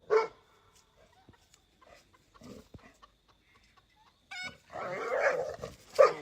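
A dog giving a few short barks: one at the start, and more near the end, with faint scuffling between.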